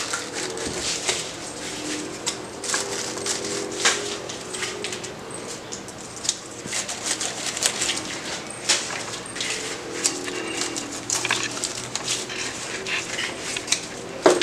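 Red spray rose stems and foliage rustling and snapping as they are handled and pushed into floral foam: a string of short, sharp clicks and rustles.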